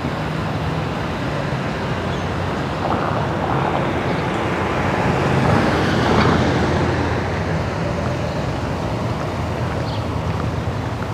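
Ram 1500 pickup truck driving past close by, its engine hum and tyre noise swelling to a peak about halfway through and then fading, over steady street traffic.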